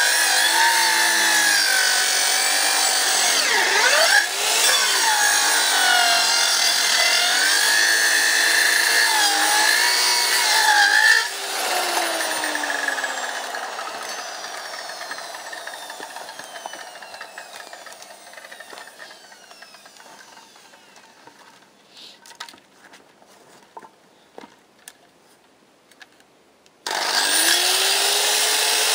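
Electric power saw cutting wood, its motor pitch wavering under load. About eleven seconds in it is switched off and winds down with a falling whine, then come a few faint clicks and knocks. Near the end the saw starts up again with a rising whine and cuts on.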